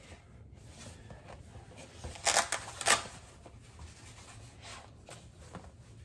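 Handling noise from unpacking: a cardboard box and a fabric carrying case rustling and scraping as a handheld thermal camera is taken out. There are short louder scrapes about two seconds in and again near three seconds.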